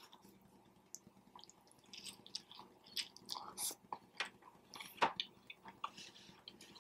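Faint chewing and biting of a Subway footlong sub sandwich: irregular soft wet mouth clicks and smacks, starting about a second in.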